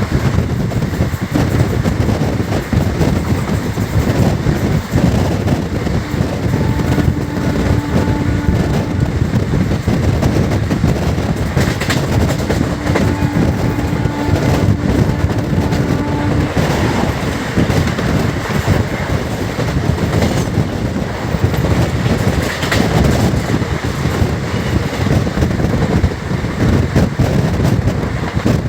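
Passenger train running at speed: a steady rumble of coach wheels with the clickety-clack of rail joints. The locomotive horn sounds twice, a blast of about two seconds some six seconds in and a longer one of about four seconds some twelve seconds in.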